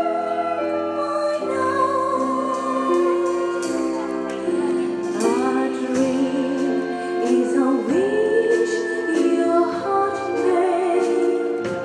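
Female pop-opera singer singing a Disney medley into a microphone, holding long notes with vibrato, accompanied by a wind orchestra of clarinets and horns.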